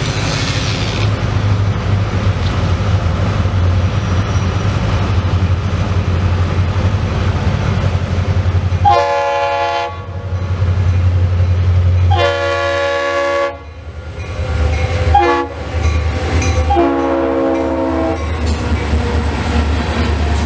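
Two Florida East Coast EMD GP40-2 diesel locomotives leading a freight train, their engines rumbling steadily as the train approaches. About halfway through the air horn sounds the long, long, short, long grade-crossing signal. Freight cars roll past near the end.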